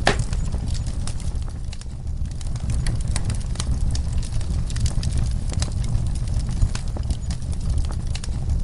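Wood fire burning in a fireplace: frequent sharp crackles and pops of the burning logs over a steady low rumble, with one louder pop right at the start.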